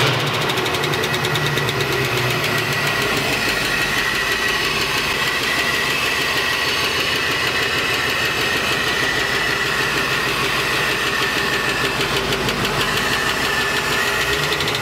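MerCruiser 496 Mag 8.1-litre V8 stern-drive engine idling steadily just after being fired up, heard up close from the open engine bay.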